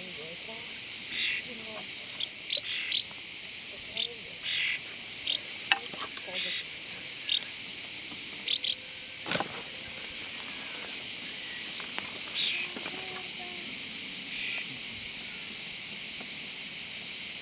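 Steady, high-pitched drone of a summer insect chorus, with short bird chirps over it, several of them sharp and loud in the first nine seconds. A single soft thump about nine seconds in.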